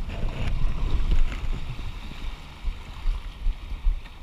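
Open canoe being paddled through river rapids: rushing, choppy water around the hull, with wind rumbling on the microphone.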